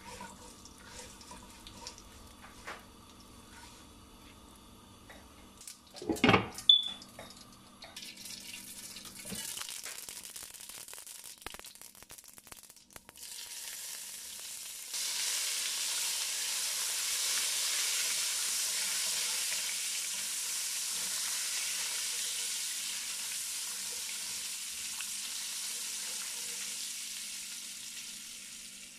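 Mustard seeds and butter sizzling in hot oil in a wok. The hiss is faint at first, jumps up sharply about halfway through as the butter melts into the oil, then holds steady and eases slightly near the end. There is a brief loud clatter about six seconds in.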